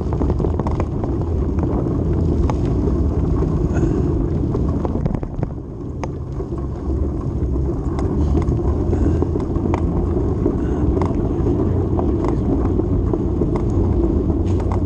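Ride noise from a small vehicle on the move: a steady low rumble with wind on the microphone, easing off briefly about five seconds in before picking up again.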